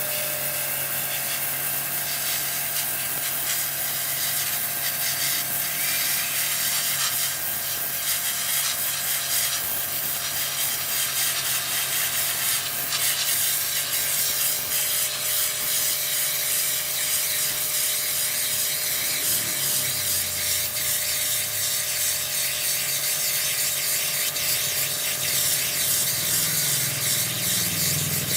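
Electric pressure washer running steadily, its motor humming under the hiss of a tight high-pressure water jet blasting into a hard coconut.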